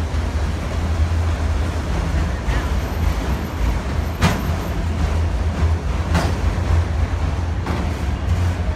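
Autorack freight cars rolling past on the rails: a steady low rumble, with a few sharp clacks from the wheels.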